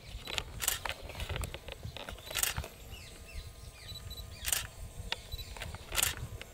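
Outdoor field ambience: a steady low rumble, with a handful of short, sharp rustling clicks at irregular intervals, the loudest near the start, in the middle and near the end. Faint, high, short falling chirps come in about halfway through.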